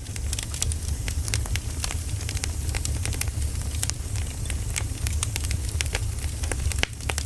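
Wood campfire burning, the firewood crackling with many sharp, irregular snaps and pops over a steady low rumble.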